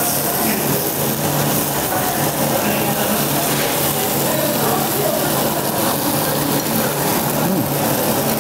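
Steady din of a busy restaurant: background chatter over a constant hiss.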